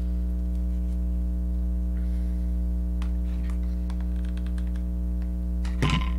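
Steady electrical mains hum, with faint clicks and a quick run of light ticks from handling ribbon and a hot glue gun, and a short knock near the end.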